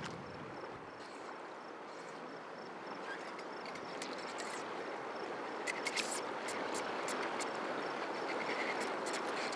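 River current rushing around a wading angler, a steady wash of water noise. From about four seconds in, a run of sharp clicks sounds over it, bunched around the middle and again near the end.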